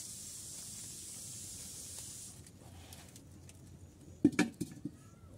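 A steady hiss from an open, steaming metal pot of meat over a wood fire fades out about two seconds in. Near the end come a few loud metallic clanks as the metal lid is set back on the pot.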